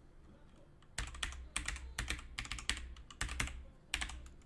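Typing on a computer keyboard: a quick run of key clicks starting about a second in, coming in short clusters with brief pauses.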